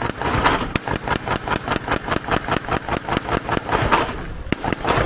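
An engine running with a steady, even knocking beat of about six beats a second.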